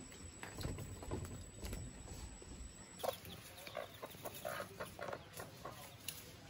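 Chickens clucking in short, repeated calls from about halfway in, after low rumbling with a few knocks.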